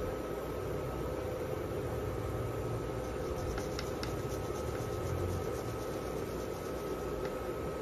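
Broth at a rolling boil in a wok: a steady bubbling rumble, with a few faint clicks.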